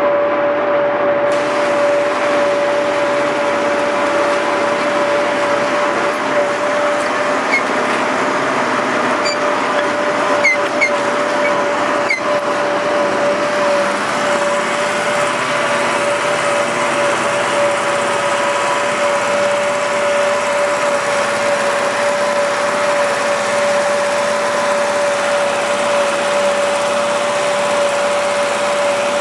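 John Deere tractor's diesel engine running steadily while it pulls a disc harrow through the soil, with a constant whine above the engine note and a few faint clicks midway.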